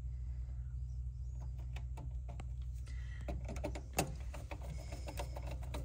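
Small clicks and scrapes of a screwdriver and wires at a boiler's plastic wiring terminal block as a terminal screw is done up, the sharpest click about four seconds in, over a steady low hum.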